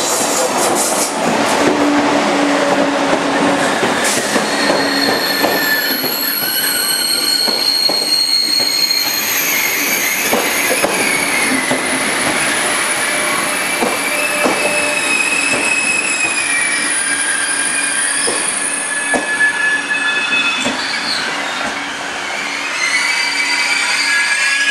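TGV high-speed trainset rolling slowly into the platform, its wheels and brakes squealing in several high steady tones, with irregular clicks of wheels passing over rail joints.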